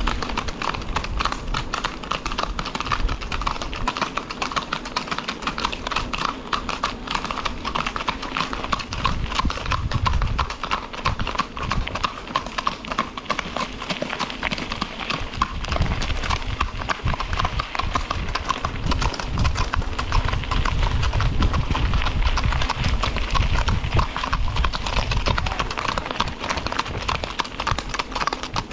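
Horses' hooves clip-clopping steadily on a paved lane, several horses walking and trotting together.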